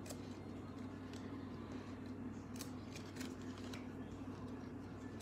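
1992-93 Stadium Club basketball cards being flipped and slid against one another in the hands, giving soft, scattered swishes and ticks over a steady low hum.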